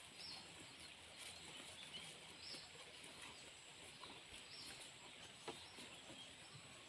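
Quiet rural ambience in which a bird gives several short high chirps a second or two apart, over faint soft crackles of a cow pulling and chewing cut grass at a wooden trough.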